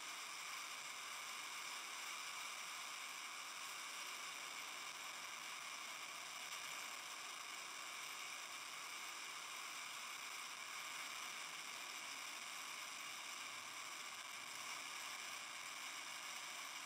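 RS-25 liquid-hydrogen rocket engine firing steadily on a test stand: a constant, hiss-like rushing roar that stays level, mostly high in pitch with little deep rumble.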